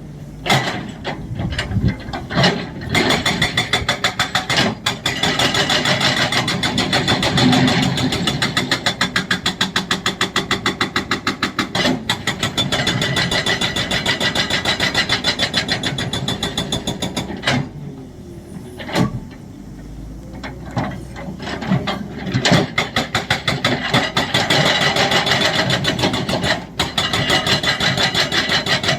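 Hydraulic breaker on an excavator hammering with rapid, even blows over the machine's running diesel engine. About two-thirds through, the hammering stops for a few seconds and only the engine is heard, then it starts again.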